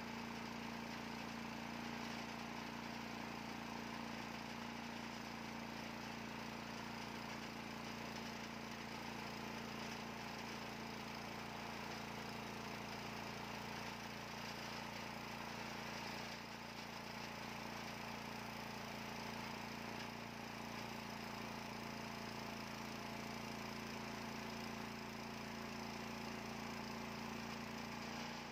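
Bandsaw mill running steadily as its blade saws lengthwise through a hardwood log, cutting a slab, with an even, unbroken machine sound and a constant low hum.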